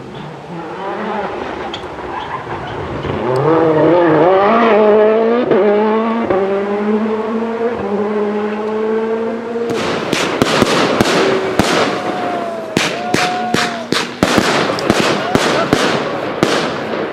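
A rally car passing at speed, its engine revving hard with its pitch climbing and stepping as it changes gear. About ten seconds in, this gives way to fireworks: a rapid string of sharp cracks and bangs.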